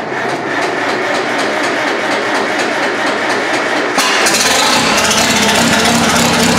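Four-cylinder gasoline engine of a McCormick-Deering Farmall Super M tractor running steadily. About four seconds in there is a click, and after it the engine sounds slightly louder and brighter.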